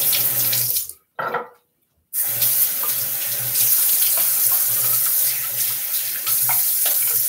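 Sink tap running while a face is rinsed after a razor pass. The water stops about a second in, comes on briefly, then starts again and runs steadily.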